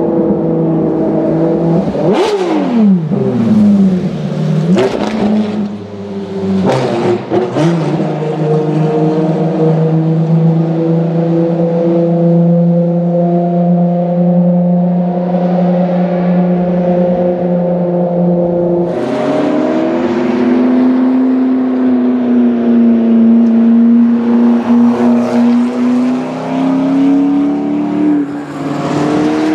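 Track-only hypercar engines running at steady revs, with other cars passing early on, their pitch falling sharply. About two-thirds through, the engine note drops to a lower steady pitch, then rises again near the end.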